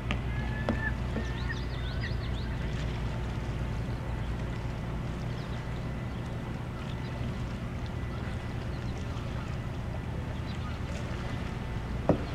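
Steady low rumble of open-air background noise by calm water, with a few faint waterbird calls in the first couple of seconds and a single sharp knock near the end.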